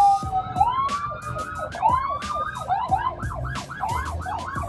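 Ambulance siren: its slow wail gives way to rising sweeps that quicken into a fast yelp, about three a second by the second half.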